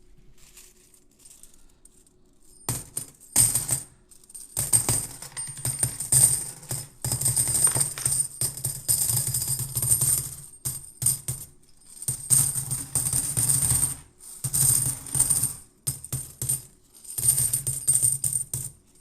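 A bag of silver Franklin half dollars poured out slowly onto a pile of coins: jingling, clinking runs of a second or two separated by short pauses, starting about three seconds in.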